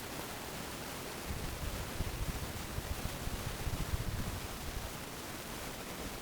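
30-inch Harbor Breeze Typhoon ceiling fan running, a steady whoosh of moving air, with low rumbling bumps through the middle.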